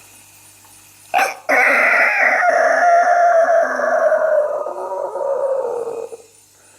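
A man imitating a rooster's crow with his voice: a short first note about a second in, then one long call that slowly falls in pitch before it stops.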